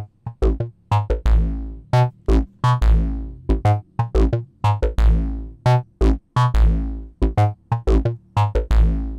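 Make Noise 0-Coast analogue synthesizer played by a Make Noise 0-CTRL step sequencer: a repeating loop of short, decaying synth notes that change in pitch, loudness and length from step to step, in an uneven rhythm. Some steps are longer notes with a deep bass.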